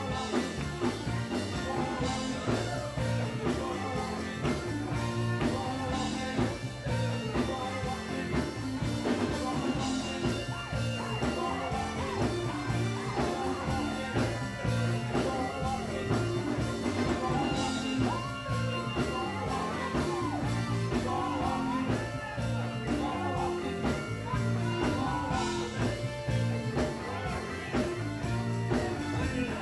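Live gospel quartet music: electric guitar, drums and keyboards playing a steady driving beat, with singing over the band.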